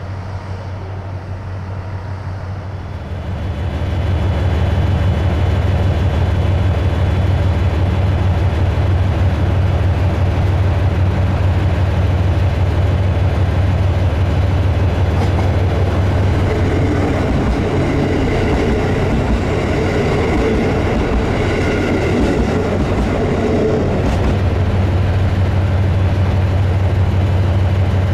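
Diesel railcar engine running at a steady pitch with a deep hum, growing louder about three seconds in. A rougher rushing noise joins for several seconds in the middle.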